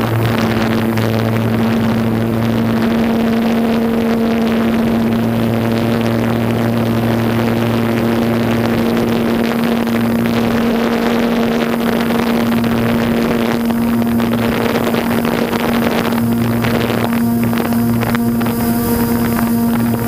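DJI Phantom 2 quadcopter's four electric motors and propellers buzzing steadily in flight at one constant pitch, with a lower hum that fades in and out, picked up by the GoPro mounted on the drone.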